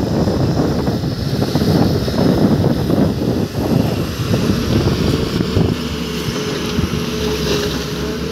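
Diesel engine of a Tata Hitachi 210 hydraulic excavator running close by, a steady low rumble, with wind buffeting the microphone.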